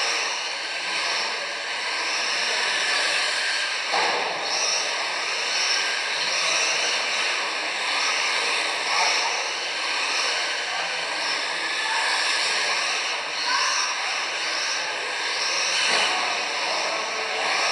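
Electric 1/10-scale RC touring cars racing on a carpet track: a steady high whine of motors and drivetrains, with short rising pitch sweeps as cars accelerate past. A knock about four seconds in and another near the end.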